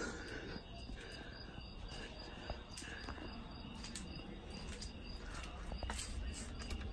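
Crickets chirping: a faint high chirp repeated steadily, several times a second, over a low outdoor rumble.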